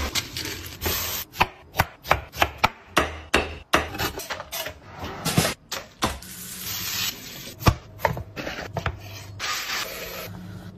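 A quick succession of kitchen prep sounds: irregular knocks and chopping on a wooden board, and stretches of rushing water from draining a pot and a running tap.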